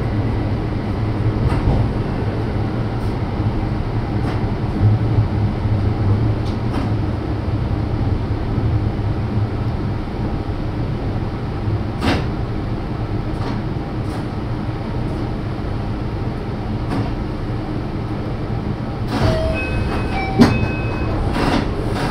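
JR Shikoku 5000-series train running, heard from inside the leading car: a steady low rumble of wheels on rail with scattered clicks. Near the end come a few short, thin tones and one sharp click.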